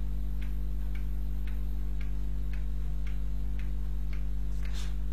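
Steady low electrical hum with faint, regular ticks about twice a second.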